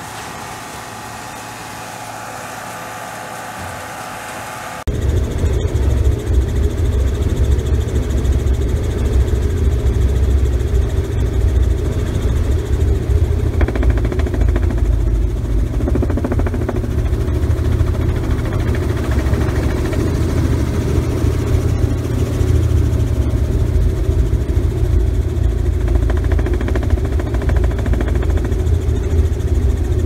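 A John Deere 4040 tractor and round baler running with a steady hum. About five seconds in it cuts to a much louder, steady, deep rumble of a vehicle engine.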